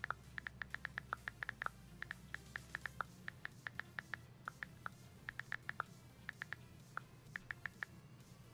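iPhone on-screen keyboard clicks of iOS 10 beta 5 as letters are typed: short, quick taps in irregular runs with brief pauses between words.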